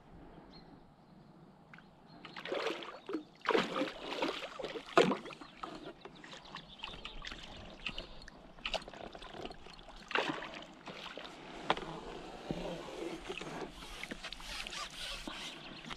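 A hooked carp splashing and thrashing at the surface close to the bank, with irregular splashes and sloshing water starting about two seconds in. Near the end the water sloshes as the landing net goes under the fish.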